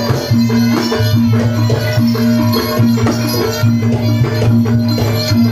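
Traditional Javanese barongan and reog accompaniment music: drums and percussion play a steady, repeating rhythm under a short pattern of pitched notes that recurs over and over.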